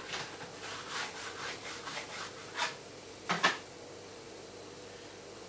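Hands rubbing and rolling soft homemade boilie paste into balls: a run of short rubbing strokes, the last and loudest about three and a half seconds in, then it stops.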